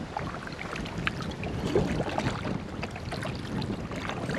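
A kayak being paddled: the paddle blades dip and drip, with small splashes and water lapping at the hull in a steady patter of little ticks.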